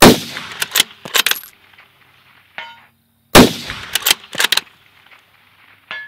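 Two rifle shots from a .308 Ruger Precision Rifle, about three and a half seconds apart, each followed by a few short metallic clicks of the bolt being worked.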